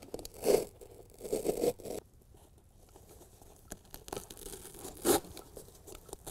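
Utility knife blade cutting through the molded foam backing of a carpet truck bed liner panel, a series of short scraping, tearing strokes with the loudest about half a second in, around a second and a half in, and about five seconds in.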